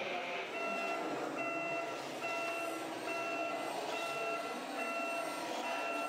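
Reversing-alarm beeper from an RC model vehicle's sound module, sounding seven evenly spaced beeps a little under a second apart.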